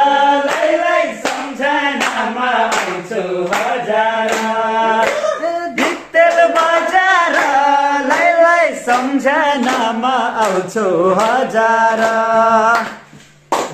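Men singing a Nepali folk song (tukka) together, with hand clapping in time. The singing breaks off briefly near the end.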